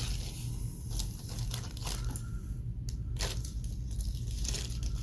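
Irregular crinkling and rustling of hands handling light plastic, over a steady low hum.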